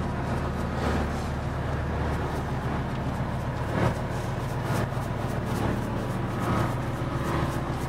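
Fishing boat's engine running steadily in a low drone, with scattered light ticks as salt is shaken onto the icy deck and a sharp knock about four seconds in.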